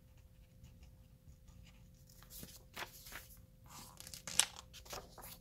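Pen scratching faintly as it writes on a paper worksheet, then paper rustling as the sheet is moved and a picture book's page is handled and turned, with the sharpest rustle a little past the middle.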